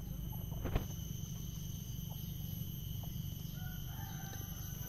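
A rooster crowing faintly in the distance near the end, over steady outdoor background noise. A single click comes about three quarters of a second in.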